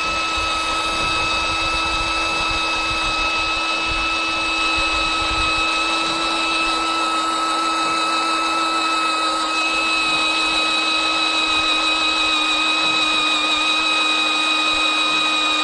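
Electric drill running steadily under load, drilling out a broken safety pin: one steady whine over a constant cutting noise, without a break.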